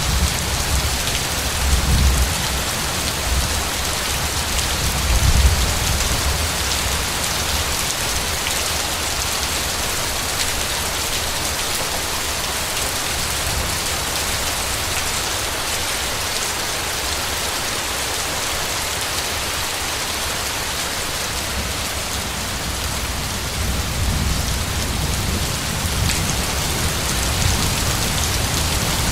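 Steady heavy rain with low rolls of thunder. The rumbles swell in the first few seconds and again near the end.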